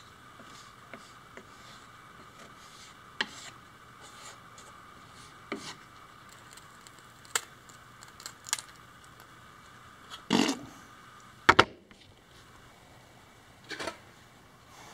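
Putty knife scraping and tapping on a plywood kayak edge while spackle is spread and smoothed: scattered short scrapes and clicks, with a louder scrape about ten seconds in and two sharp clicks just after.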